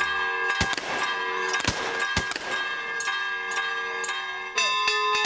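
Church bells ringing, struck afresh near the end, with three sharp bangs cutting through in the first couple of seconds.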